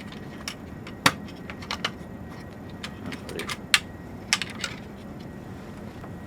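Irregular sharp clicks and taps of cables being handled and rerouted inside a server chassis, the two loudest about a second in and a little past the middle.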